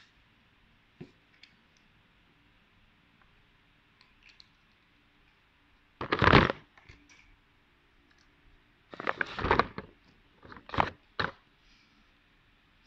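Paper being handled on a desk: short bursts of rustling and crinkling, the loudest about six seconds in and two more between nine and eleven seconds, with a few light clicks earlier.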